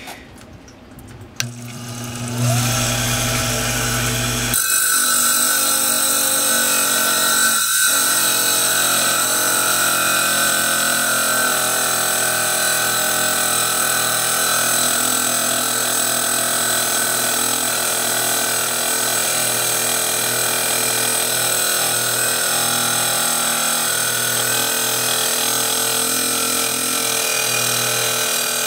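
A lapidary trim saw is switched on about a second and a half in, and its motor runs up to speed. From about four and a half seconds in, its diamond blade cuts steadily through a slab of petrified palm wood with a constant, even grinding.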